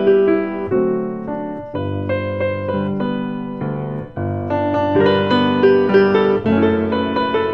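Background piano music, with chords and melody notes changing every half second or so.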